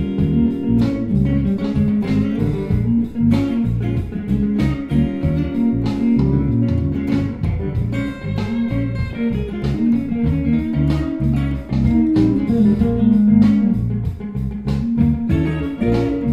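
Outro music: a guitar-led track with a steady, regular beat.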